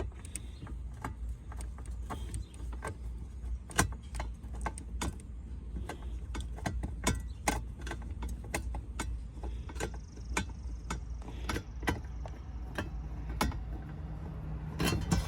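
Irregular light clicks and rattles of hand tools and small screws being worked loose from under-dash trim panels, over a steady low hum.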